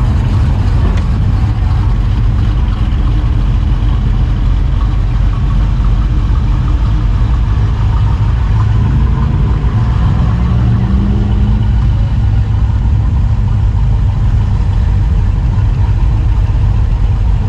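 Car engines running at low speed as a line of classic and sports cars drives slowly past one after another. One engine's pitch rises briefly about ten seconds in as it revs up.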